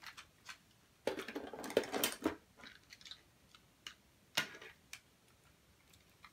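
Vintage plastic toy figures being handled off the table: light clicks, then a short spell of clattering and rattling about a second in, and another sharp click a little later.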